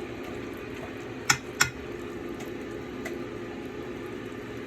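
Two sharp clinks of kitchenware, such as a utensil against a dish or pot, about a second in and a third of a second apart, with a fainter one later, over a steady low hum.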